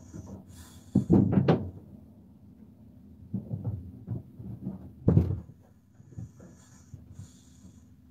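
A few dull knocks and bumps, the loudest cluster about a second in and another sharp one about five seconds in, over a faint steady hum.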